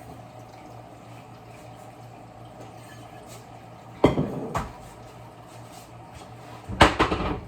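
Pot of pasta boiling on the stove with a steady low hum underneath. Dishes clatter loudly twice: once about four seconds in, and again in a quick cluster near the end.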